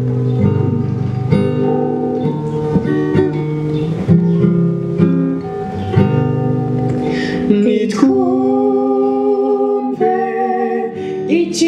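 Steel-string acoustic guitar played note by note with a pick; about eight seconds in, a man and a woman start singing together over it.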